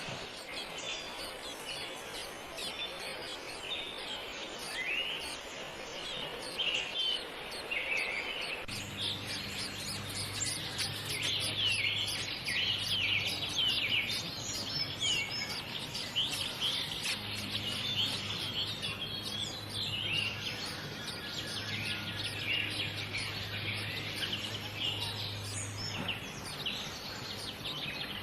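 Birds chirping continuously, many short high calls in quick succession. From about a third of the way in a low steady hum joins underneath, dropping out briefly a couple of times.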